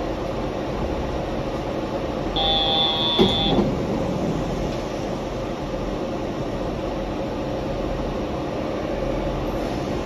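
Rubber-tyred Yurikamome automated guideway train running, a steady rolling and motor noise heard from inside the front of the car. About two and a half seconds in, a short high electronic beep sounds for about a second, with a brief click in the middle of it.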